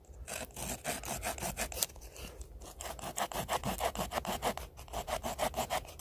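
Leatherman Surge multitool's small wood-saw blade cutting a notch into a piece of wood, with quick, even back-and-forth rasping strokes.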